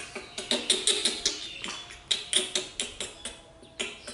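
A quick, irregular run of sharp clicks, several a second in clusters, with short gaps between the runs.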